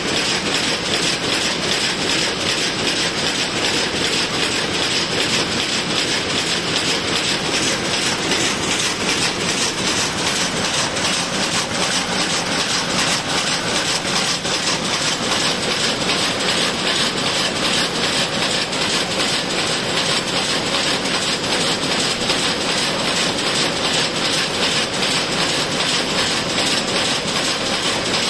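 Rapier loom with an electronic jacquard weaving at full speed: a loud, steady, rhythmic mechanical clatter, about two and a half picks a second, from the beating and shedding mechanism.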